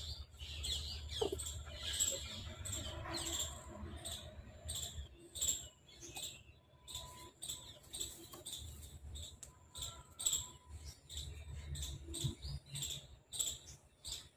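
Small birds chirping outside, short high chirps repeating several times a second, over a faint low hum.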